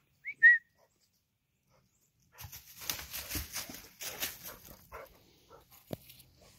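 Two short high-pitched squeaks, then footsteps and a dog trotting through dry fallen leaves, crunching and rustling for a couple of seconds before tapering off.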